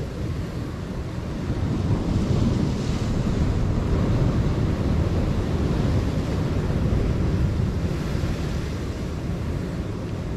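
Surf breaking and washing against a rocky shoreline, a steady rushing noise, with wind buffeting the microphone.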